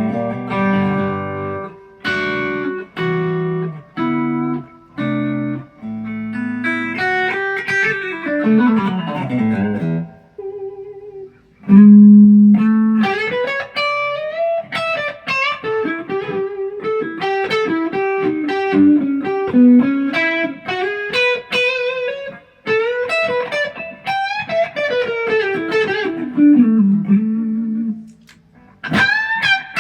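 ESP LTD EC-256 electric guitar being played: short chord stabs with brief gaps between them, then descending single-note runs. After a short quiet spot it moves into melodic single-note lines that open with one loud note.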